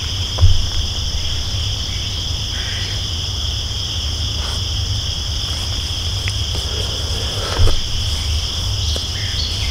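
A steady chorus of insects singing in the woods, in two high, even bands, over a low rumble. There are two brief soft thumps, about half a second in and again near the end.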